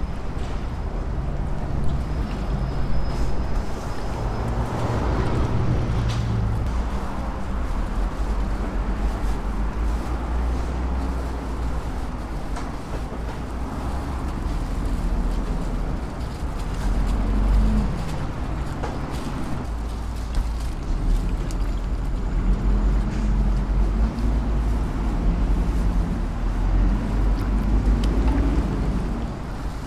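Steady low rumble of street traffic, with engine hums that rise and fall a few times.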